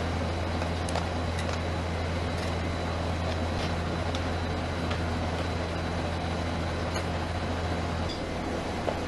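Steady low hum of a rolled ice cream machine's refrigerated cold plate running, with a few light clicks of metal tongs and spatula against the plate and cup. The hum falls away near the end.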